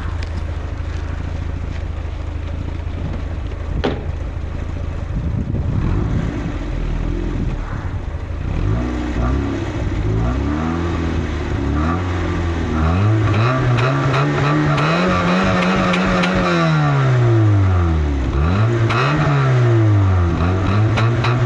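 Škoda Felicia 1.3 MPi's four-cylinder engine heard at the tailpipe, idling steadily, then revved repeatedly from about eight seconds in: short blips, then a longer climb that is held and dropped, then another rev. The exhaust is modified: a front pipe from a carburettor Favorit with no catalytic converter, the middle silencer removed, and the stock rear silencer.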